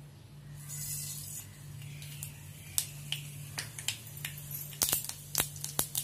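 Mustard seeds sizzling in hot oil in a hammered steel kadhai and starting to pop for a tempering. A hiss is followed by sharp crackles, a few at first about three seconds in and then faster and thicker near the end, over a low steady hum.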